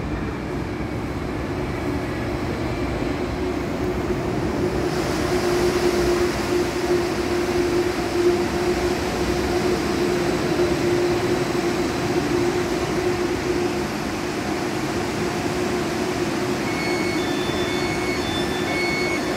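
Ankeng Light Rail tram pulling into the station alongside the platform: a steady electric running hum and rumble with a held tone that grows louder as the tram comes close, then eases. Near the end a repeated high beeping starts.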